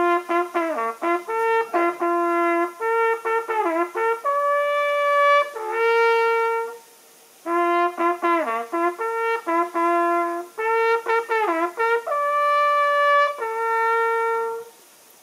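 Hunting horn playing a hunting signal: quick figures on a few natural-horn notes ending in long held tones, the phrase played twice with a short break about halfway.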